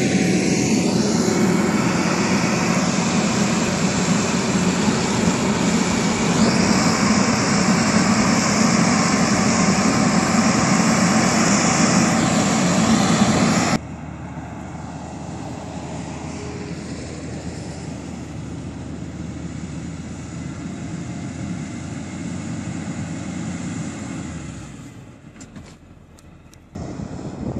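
Cat 160K motor grader's diesel engine running steadily. For about the first half it is loud and close, with a strong hiss over the drone. After an abrupt cut it is a quieter, steady engine drone as the grader works toward the camera, dipping near the end.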